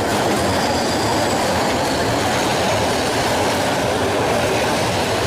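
Train running on rails: a steady, dense rumble and rattle of wheels on track.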